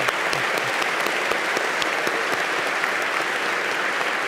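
Audience applauding steadily, a dense sustained clapping of many hands.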